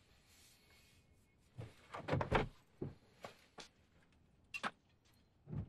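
A car door being opened and shut as someone climbs out: a series of short clicks and knocks, starting about a second and a half in, with a louder pair of knocks just before the end.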